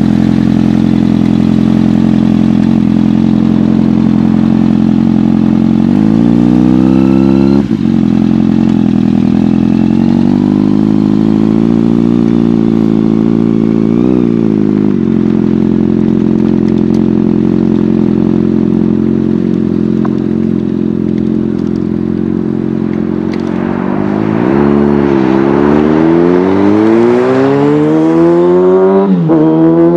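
Kawasaki Ninja ZX-6R 636 inline-four through an M4 GP-style aftermarket exhaust, running at a steady speed. It revs up about six seconds in and again briefly around fourteen seconds. Near the end it accelerates hard with rising pitch, drops briefly at a gear change, then climbs again.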